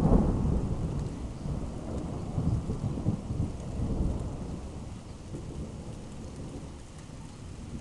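Thunder rumbling: the loudest clap comes right at the start, then it rolls on in several swells and fades away. Rain patters in the background.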